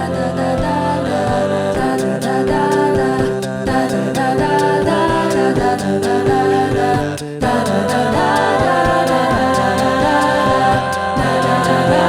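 College a cappella group singing in multi-part harmony, with a steady vocal-percussion beat under the chords; the sound drops out for a moment about seven seconds in.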